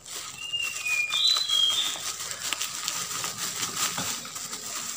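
Black plastic parcel wrap crinkling as it is pulled and snipped with scissors. Over it, a bird sings one short whistled phrase of falling notes, about half a second to two seconds in, and this is the loudest sound.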